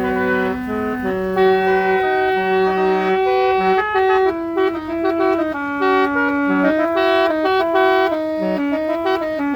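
A 1957 Chevrolet's musical horn playing a multi-note tune: steady held notes, several at once, changing pitch in abrupt steps.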